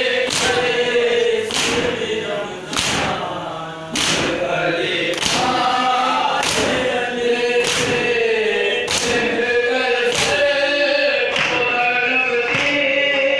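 Men chanting a Shia noha in chorus, keeping time with matam: hands striking chests together in loud, regular slaps about once every second and a bit.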